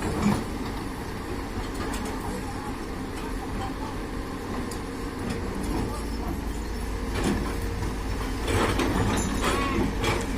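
Doosan DX200A excavator's diesel engine and hydraulics running under load, with occasional knocks and rattles that come more often near the end.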